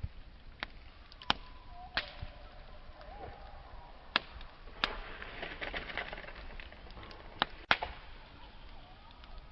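Wood campfire crackling, with sharp pops scattered through it, a few louder than the rest, and a denser spell of crackling about halfway through.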